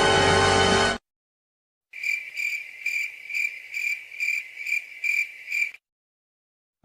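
Cricket chirping: a high, even chirp repeated a little over twice a second for about four seconds, then stopping. Before it, music cuts off about a second in.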